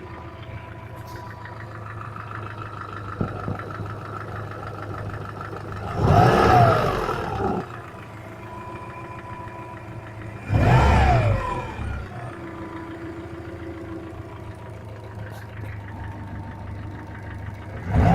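Subaru engine idling steadily, revved briefly three times, each rev rising and dropping back to idle. The engine has a knock.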